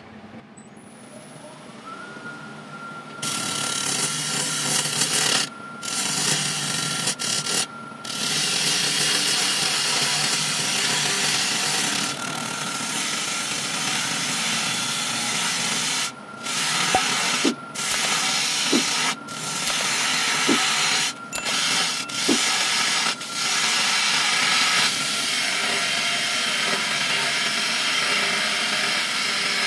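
A wood lathe comes up to speed with a rising whine about two seconds in. Then a turning tool cuts the spinning monkey puzzle log with a steady rushing scrape, broken by several brief gaps where the tool lifts off the wood.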